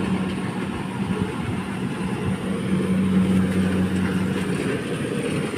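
Engine of rice-harvesting machinery running steadily, with a low hum that drops away near the end.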